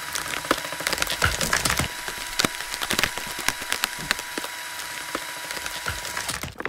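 Cordless screwdriver driving a Klimas carpentry screw into timber: dense, irregular cracking and crackling of wood fibres over the screwdriver's steady motor whine, which stops shortly before the end.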